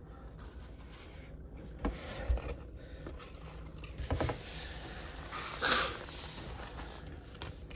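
Handling noises as a stuffed plush toy is moved about and set down: a couple of dull thumps about two seconds in, a few light knocks around four seconds, and a short rustle just before six seconds.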